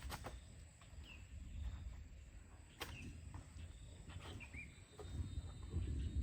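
A few short, high chirps from small birds, with scattered sharp knocks and a low rumble.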